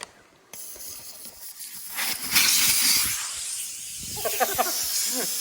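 Air hissing steadily through the valve of a tubed implement tire. It starts about half a second in and is loudest around two seconds in.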